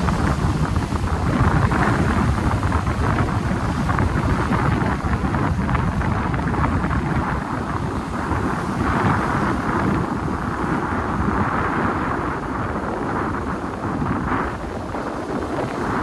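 Strong wind buffeting the microphone with a heavy low rumble, over waves breaking and washing against the shore. The hiss of the surf swells from about eight seconds in.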